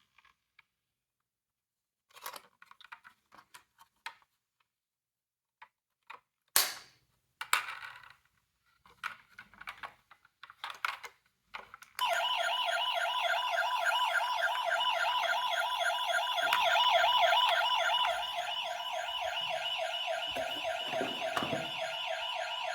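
Scattered light clicks and taps, then about halfway through the electronic sirens of toy ambulance and police cars switch on and keep sounding, a dense, fast-warbling wail of several overlapping siren tones.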